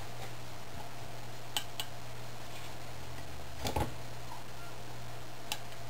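Light metallic clicks from a thin hand tool working inside a Rochester carburetor body. There are a couple of small taps, a louder clatter about two thirds of the way through and one more tap near the end, over a steady low hum.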